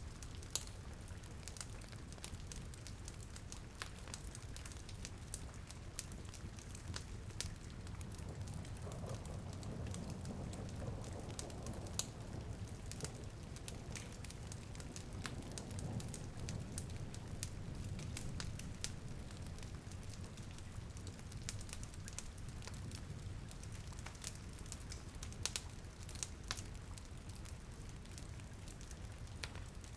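Rain and fireplace ambience: a steady low rain hiss with scattered sharp crackles and pops from burning wood, a little fuller about a third of the way in.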